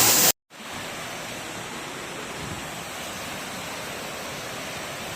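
Steady rush of falling water from a waterfall. It cuts out for a moment near the start, then runs on evenly.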